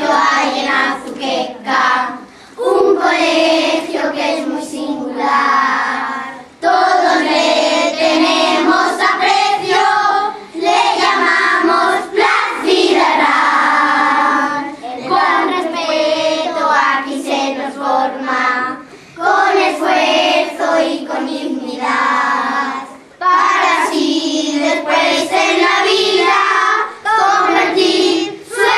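Children's school choir singing, in phrases a few seconds long separated by short gaps.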